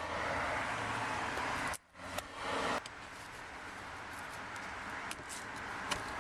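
Steady background noise like distant traffic, with a few faint clicks of plastic trim clips being pushed into a car's rear seat back. The sound drops out briefly about two seconds in.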